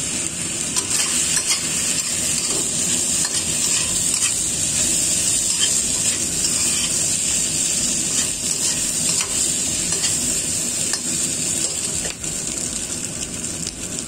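Fried rice with shrimp and vegetables sizzling steadily in a hot wok while a metal spatula stirs and scrapes it, with small clicks of the spatula against the wok.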